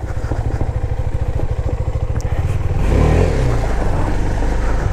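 KTM Duke 390's single-cylinder engine running as the motorcycle is ridden slowly, with a brief rise in revs about three seconds in.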